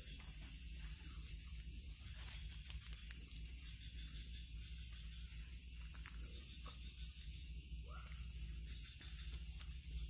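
Steady high hiss of night insects over a low rumble, with a brief squeak about eight seconds in.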